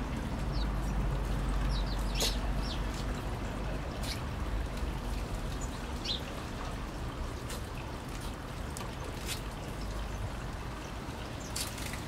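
Young feral pigeon making short, sharp, sneeze-like sounds about every two seconds, with a few faint chirps between them, over a steady low rumble.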